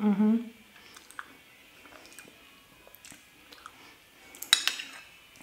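A short, closed-mouth "mm" of enjoyment rising in pitch at the start, then, about four and a half seconds in, a metal spoon clinks sharply against the dish a couple of times with a brief ring.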